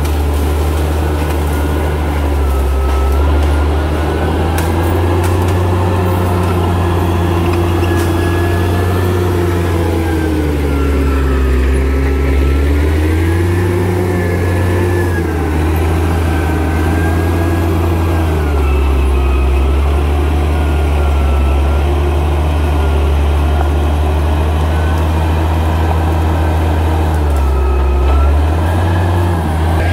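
Bulldozer's diesel engine running under load, its pitch slowly rising and falling as the revs change, with a steady heavy low rumble throughout.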